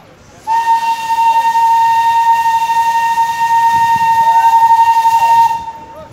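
Darjeeling Himalayan Railway steam locomotive's whistle blowing one long, steady, high blast of about five seconds, with a hiss of steam around the note.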